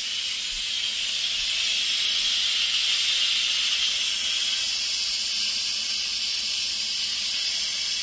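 Instant Pot Duo Plus electric pressure cooker venting steam through its release valve in a steady hiss: the pressure being let out at the end of a cooking cycle.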